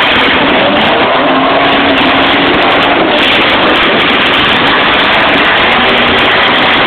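Vehicle engines in a dirt arena running and revving loudly and without pause, so loud that the phone's microphone is overloaded into a harsh, distorted wash.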